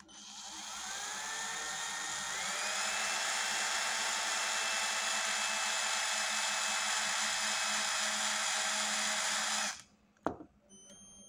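Cordless drill running as a twist bit bores through a white plastic disc. The motor whine rises in pitch over the first two seconds or so, holds steady, then cuts off suddenly near the end, followed by a single sharp click.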